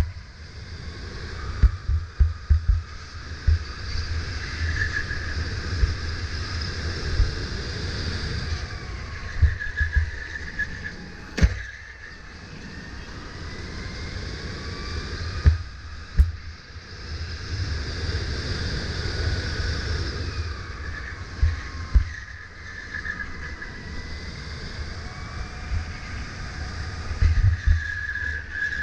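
Sodi RSX2 electric kart's motor whining, its pitch rising and falling with speed through the corners, over a low rumble with frequent sharp knocks.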